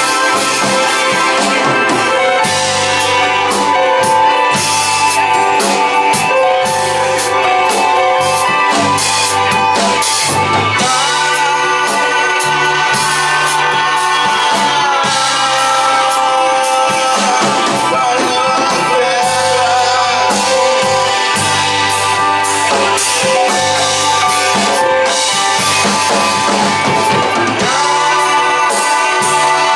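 Rock band playing an instrumental passage: drum kit keeping a steady beat under bass and guitar, with a gliding lead line in the middle.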